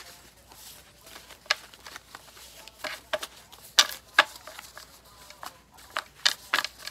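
A deck of tarot cards shuffled by hand: irregular crisp snaps and slaps as the cards are slid and tapped together, with several sharper ones near the middle and the end.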